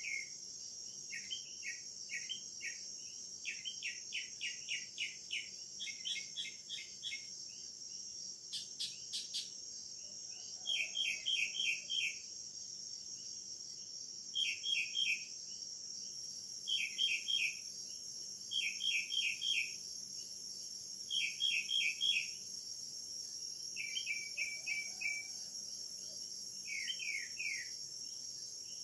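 Steady, high-pitched chorus of rainforest insects, over which an animal repeats quick runs of four to six chirps every second or two.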